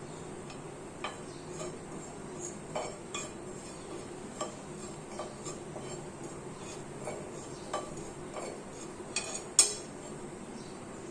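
A metal spoon clinking and scraping against a pan as something is stirred, in irregular light taps with one sharper clink near the end.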